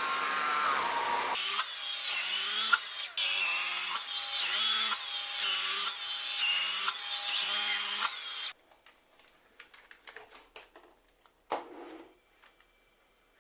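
Philips FC6726/01 cordless stick vacuum running, its motor whine dipping and recovering about every half second. It stops abruptly about two-thirds of the way in, followed by faint clicks and a brief rustle.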